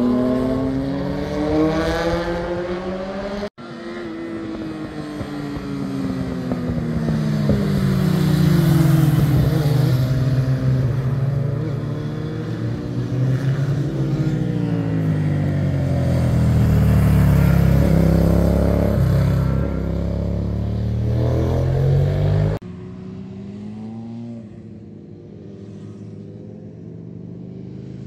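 Sport motorcycle engines passing through road bends, their pitch rising and falling as the riders roll on and off the throttle and change gear. The sound breaks off abruptly a few seconds in and picks up again, and near the end it drops suddenly to a quieter, more distant engine.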